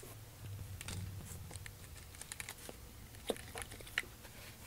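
Quiet handling sounds from a Tormach 4th-axis rotary table: a soft low whir as its faceplate is spun by hand, then a scatter of light clicks and taps, two of them a little sharper near the end.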